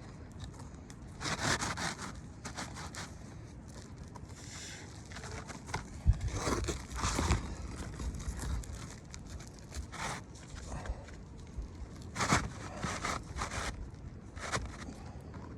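Asphalt shingle being slid up under the surrounding shingles, its gritty surface scraping and rustling against them in several short, irregular bursts.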